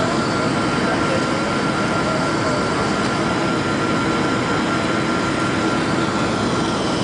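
Steady cabin noise inside a Boeing 737-300 on its descent to land: the CFM56-3 turbofans running and air rushing past the fuselage, with a steady engine whine on top.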